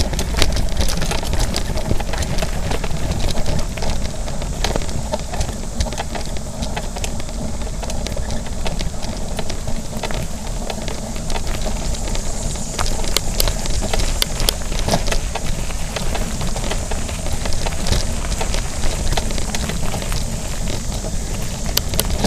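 Mountain bike rolling along a dirt singletrack: a steady low rumble of tyres and riding noise, with frequent small rattles and clicks as the bike goes over bumps.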